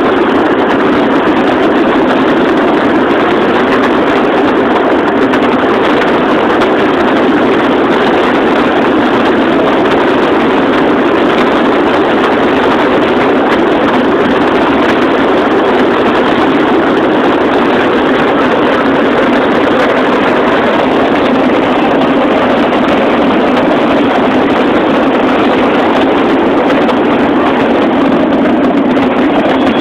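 Fireworks finale: a dense barrage of bursts that runs together into one steady, loud roar, with no single bangs standing out.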